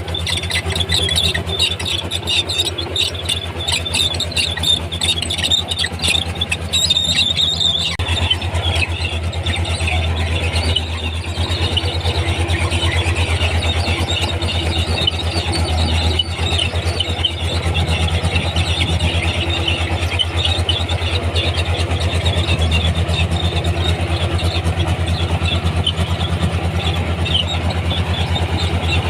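Komatsu D31P crawler bulldozer's diesel engine running steadily under a high squeal of its steel tracks. For about the first eight seconds there is more rattling and squeaking up high, after which the sound settles into a steadier drone and squeal.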